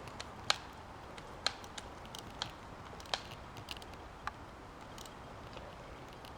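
Scattered, irregular sharp clicks and snaps over a faint steady hiss, the loudest about half a second and a second and a half in.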